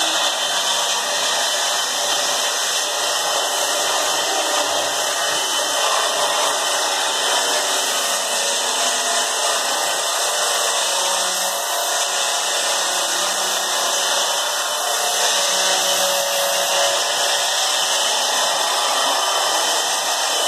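A woodworking power tool running steadily, a loud, even whirring hiss with no break.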